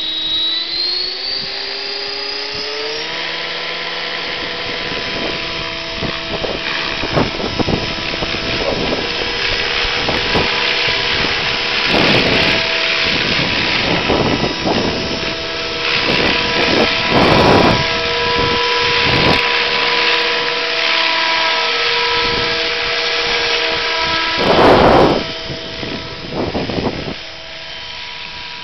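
RC scale helicopter flying, its motor and gears whining in several steady tones that rise in pitch over the first few seconds and then hold, with the rotor sound behind. Wind gusts buffet the microphone again and again, the strongest near the end.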